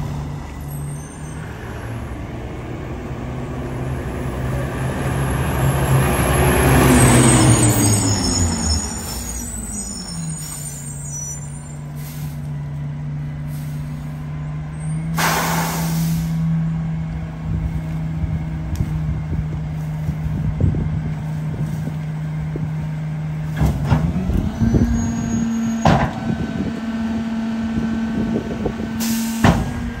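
Mack Granite rear-loader garbage truck's diesel engine running as it drives past, loudest about a quarter of the way in and dropping in pitch as it goes by. Its air brakes hiss briefly about halfway through. Near the end the engine speeds up to a higher steady pitch, the fast idle for running the rear packer, with a few sharp knocks.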